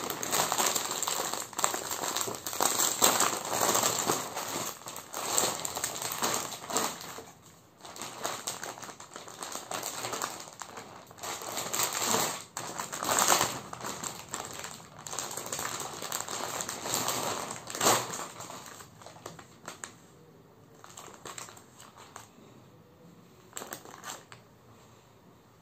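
Plastic garment packaging crinkling and rustling as it is handled, in uneven bursts. It dies down after about twenty seconds to a few soft rustles.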